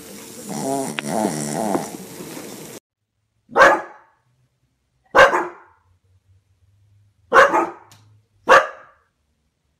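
A dog barks four single, sharp, loud barks, about one to two seconds apart, the loudest sounds here. Before them, near the start, comes a short wavering pitched vocal sound.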